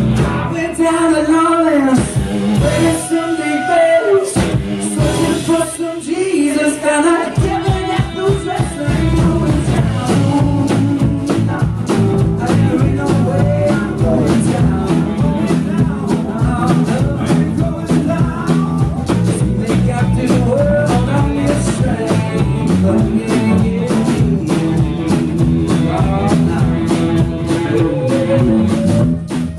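Live rock band playing: a male singer over acoustic guitar, electric guitar and drum kit. For the first several seconds the bottom end drops back, then the full band with drums comes in about seven seconds in and plays on.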